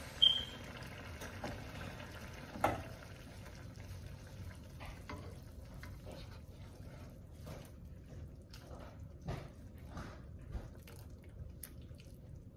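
Stove knob clicked off with a brief high tone, a knock a couple of seconds later, then faint irregular clinks and wet stirring as a spoon works through a pot of freshly boiled macaroni.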